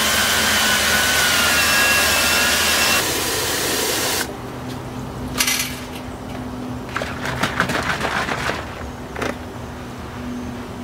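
Water from a garden hose pouring steadily into a plastic five-gallon bucket, shut off abruptly about four seconds in. After that come scattered light knocks and clicks as a plastic jug of fish-emulsion fertilizer is handled.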